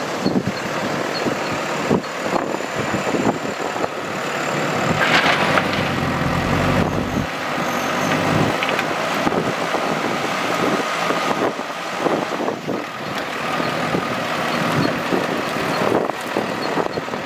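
Heavy diesel machinery working, a backhoe loader and dump trucks, with the engine note swelling for a second or so about six seconds in and many scattered knocks and clatters throughout.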